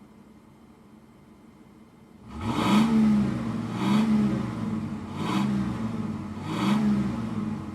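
Car engine revved four times in quick blips, about one every second and a half, each rev climbing in pitch and falling back, after a faint hiss at the start.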